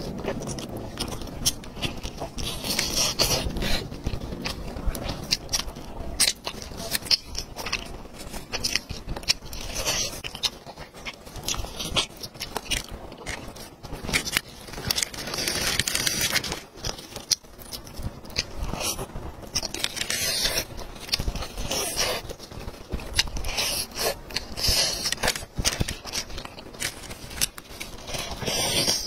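Close-miked eating sounds: wet chewing and biting of chili-coated roast chicken, with crackly scraping as plastic-gloved hands pull the meat apart.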